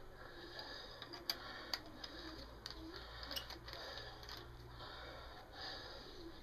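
Quiet room noise with a handful of faint, sharp clicks spread through the first half.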